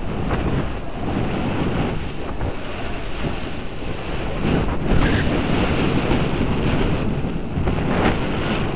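Wind buffeting the microphone: a steady, loud rush of wind noise, a little stronger about halfway through.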